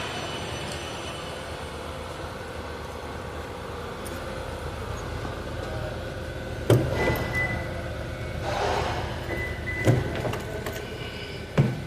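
Three sharp metallic knocks of hand tools working on the engine bay, spaced a few seconds apart, with some rattling between them, over a steady workshop hum.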